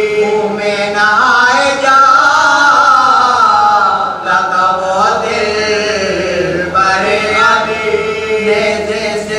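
A man's voice chanting in a slow, melodic recitation, holding long notes and gliding up and down in pitch, with brief pauses for breath.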